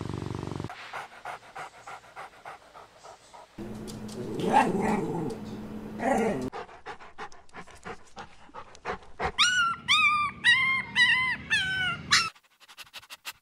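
A small puppy panting in quick, even breaths, with a louder, rougher stretch in the middle, then a run of about eight short, high whimpers near the end.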